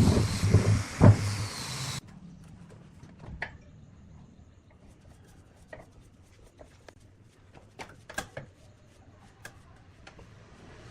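Loud woodworking noise of wood being cut and knocked on a lathe, cutting off abruptly about two seconds in. Then come faint, scattered clicks and light taps of wood being handled.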